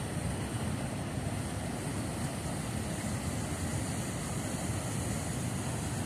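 Steady, unbroken rushing noise of fast-flowing river water, heaviest in the low range.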